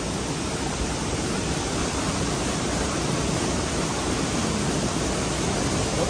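Mountain river rushing down a rocky cascade: a steady, even rush of water.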